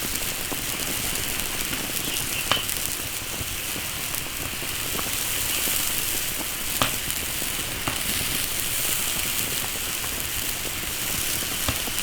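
A wok of water with an air-dried chicken in it heating on the stove for blanching, giving a steady hiss with a few sharp crackles.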